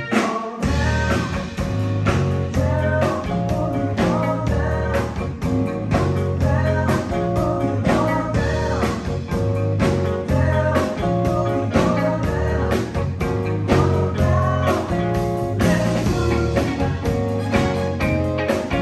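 Live band playing a blues-rock tune with electric guitar, bass and drums over a steady beat, the bass dropping out for a moment just at the start.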